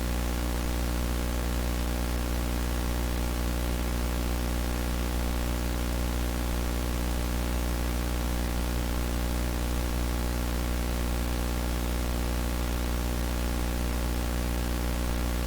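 TV-style static: a steady, unchanging hiss with a low buzzing hum beneath it.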